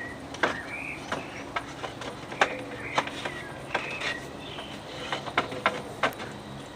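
Irregular light knocks and clicks, one or two a second, with short bird chirps behind them.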